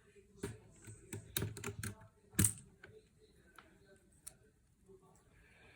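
Keys clicking on a compact mechanical keyboard with clicky blue-type switches. There are a handful of irregular presses, a quick run of them a little over a second in and the loudest about two and a half seconds in, then a few faint ticks.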